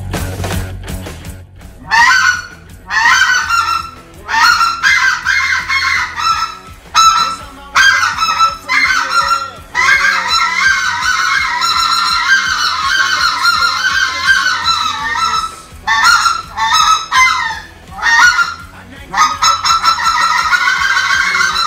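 Pacific Calls 530 specklebelly goose call blown in a run of short, high goose calls, then longer unbroken calling from about ten seconds in, and short calls again near the end.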